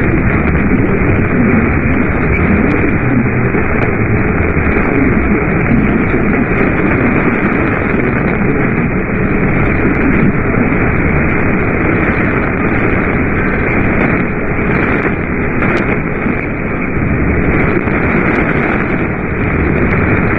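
Steady radio static: a receiver's hiss with no clear programme, muffled, with no treble above the narrow radio band.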